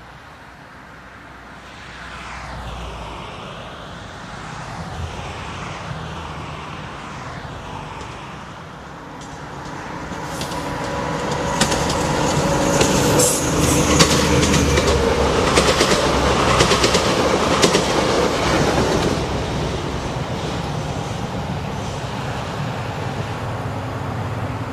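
Diesel locomotive hauling a passenger train: the engine rumble grows as it approaches and is loudest as it passes, with wheels clicking over rail joints, then the rumble eases off near the end.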